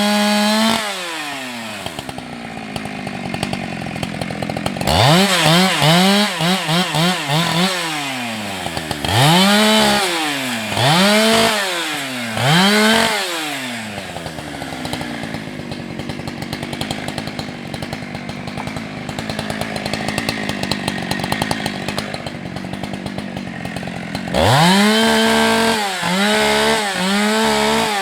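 Husqvarna 365 two-stroke chainsaw at high revs, dropping to idle, then revved up and down in a string of short throttle bursts. After a long idle it goes back to steady full throttle near the end, with a few dips as it works.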